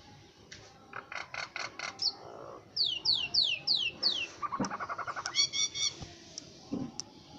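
Common myna singing: a quick run of short chattering notes, then five falling whistles in a row, then a fast rattling chatter.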